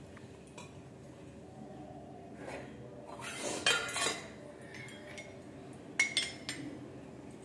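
Small brass cups and a brass plate clinking against each other and the tile floor as they are set down and arranged, with a few light knocks and a louder run of clinks a little past the middle and again near the end.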